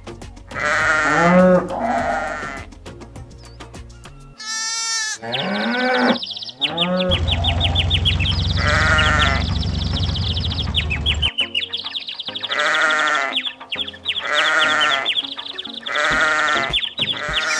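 Repeated animal bleats, wavering calls every second or two, over background music. A low steady hum joins in the middle for about four seconds.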